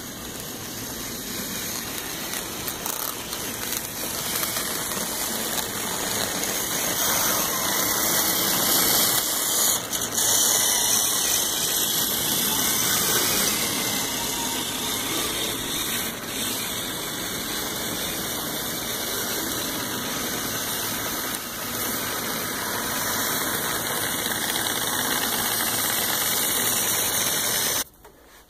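Twelve HO scale Union Pacific model diesel locomotives running past on the track, a steady whirr of motors and wheels on rail. It grows louder over the first several seconds, holds steady, and cuts off abruptly near the end.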